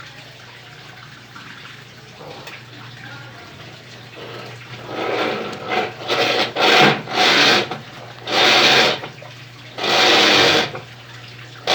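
Colormaq LCA12 top-load washing machine working through its cycle: a steady low motor hum. From about halfway in, water sloshes loudly in the tub in repeated surges of about a second each, roughly one a second.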